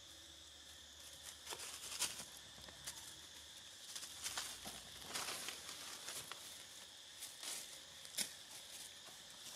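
Irregular crackling and rustling of twigs and leaves as long-tailed macaques tug at and mouth a thin branch, with a few sharp snaps, the loudest about two seconds in and near the end. A steady high insect drone runs underneath.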